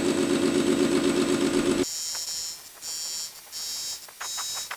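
A CNC lathe spinning at about 500 RPM, its turning tool taking an interrupted cut across the end of a castle nut. For about the first two seconds there is a steady, fast-pulsing hum. It then drops off abruptly, and a high-pitched whine comes and goes in short stretches, with scattered ticks.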